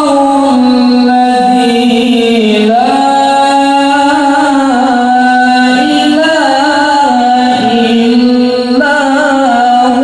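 A man chanting Quranic recitation (qiroah) into a microphone through a sound system during a sound check. He holds long notes with wavering ornaments and moves to a new pitch every few seconds.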